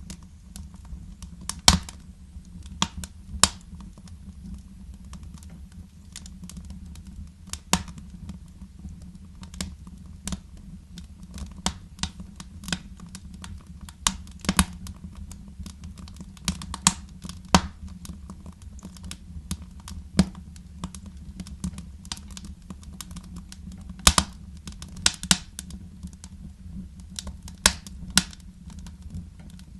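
Fire in a fireplace crackling, with irregular sharp pops and snaps over a low steady rumble.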